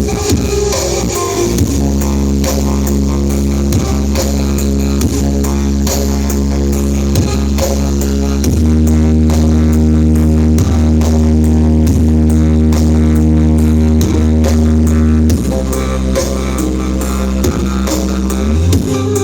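Loud music played through a large sound system at a sound check, dominated by deep sustained bass notes over a steady beat; the bass line shifts to new notes about eight seconds in and again near fifteen seconds.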